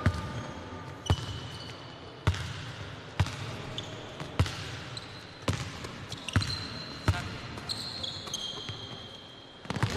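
A basketball being dribbled on an indoor court, bouncing about once a second, with short high squeaks of sneakers on the floor in between.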